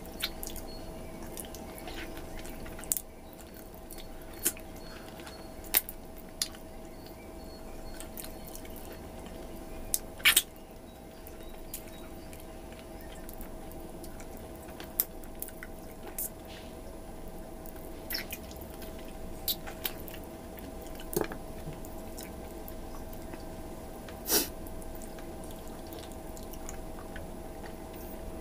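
Close-miked eating: wet mouth smacks, sucking and chewing as beef meat and gristle are sucked off a large stewed bone, heard as scattered sharp wet clicks, a few of them louder. A steady hum runs underneath.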